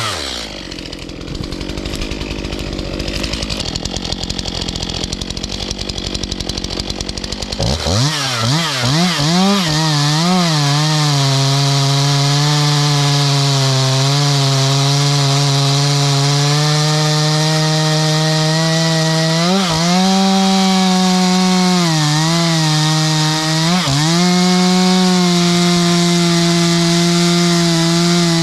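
Stihl MS 251 45cc two-stroke chainsaw idling roughly for about eight seconds, then revving up and holding steady high revs with occasional brief dips in pitch, typical of the chain bogging as it bites into ash wood.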